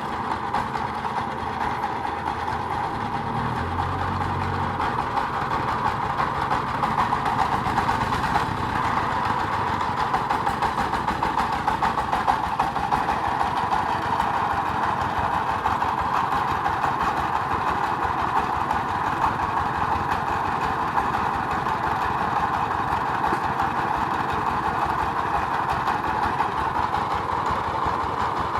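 An engine running steadily at a constant speed, with a fast, even firing rhythm.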